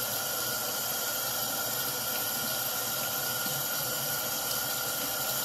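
Kitchen faucet running into a mesh strainer at a stainless steel sink, rinsing tomato seeds: a steady hissing rush of water with a faint steady tone in it.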